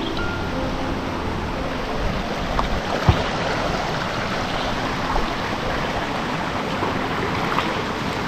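Water of a small rocky stream running low, a steady rush, with a single thump about three seconds in.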